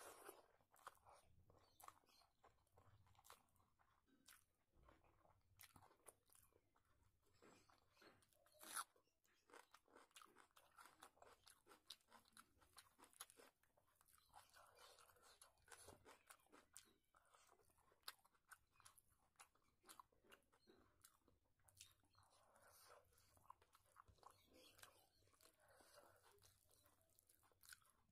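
Faint close-up eating sounds: a person chewing mouthfuls of rice by hand, with many small wet mouth clicks, and fingers mixing rice on the plate.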